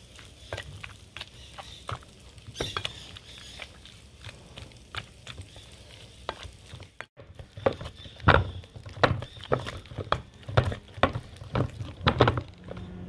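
Potato masher working soft potatoes, butter and cream in a glass bowl: repeated wet mashing strokes with short knocks against the glass, getting louder and more frequent about eight seconds in.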